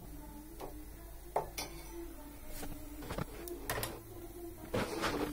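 Kitchen utensils knocking and scraping against a steel pan: several short sharp knocks scattered through, with a cluster near the end, over a steady low hum.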